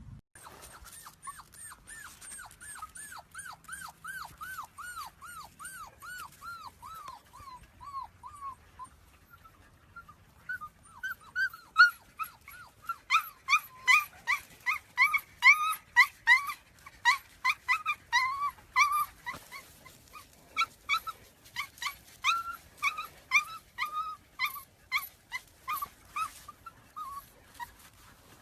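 A dog whining in a long run of high-pitched cries that each rise and fall, about two to three a second. The cries are soft for the first several seconds and louder from about ten seconds in.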